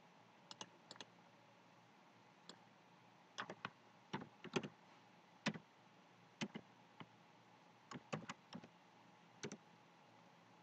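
Faint computer keyboard keystrokes: scattered single taps and short clusters of two or three, with pauses of a second or so between them.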